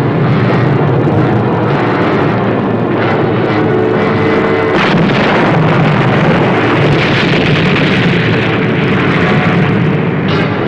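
Loud, continuous rumble of staged battle sound effects: explosions and gunfire mixed together with no break.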